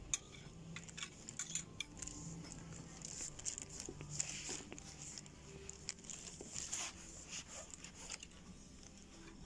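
Garments on a clothes rail rustling as a hand brushes and pushes through them, with many light clicks and knocks.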